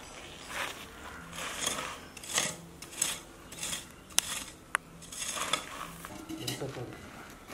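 A short-handled metal tool digging and scraping into dry, gravelly soil, a gritty scrape about every half second to second, with two sharp clicks a little past the middle.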